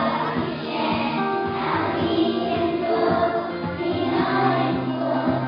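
Young children singing together as a group, accompanied by music.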